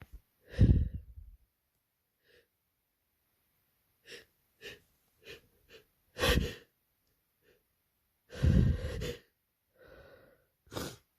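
A person with a head cold sneezing: three loud sneezes, about a second in, past the middle, and about three-quarters through, with short catching breaths between them.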